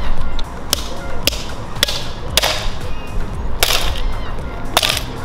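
A small hammer striking a plastic cup on the ground to crack it into shards: about six sharp cracks, roughly one a second.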